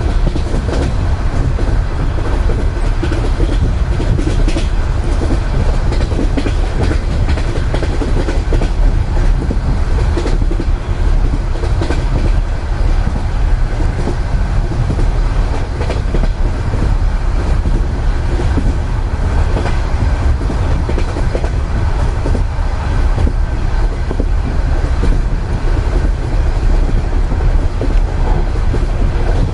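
Russian Railways passenger car heard from inside a sleeper compartment: a steady low rumble of the moving train, with the clickety-clack of the wheels running over rail joints.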